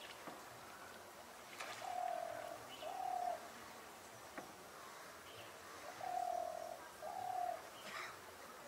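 A bird calling: two pairs of short, steady hooting notes, the first pair about two seconds in and the second about six seconds in.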